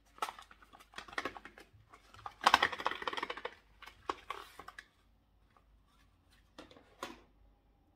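Cardboard advent-calendar door and packaging being opened and handled by hand: a run of small clicks and taps, with a denser rustling stretch about two and a half seconds in and a few last taps near the end.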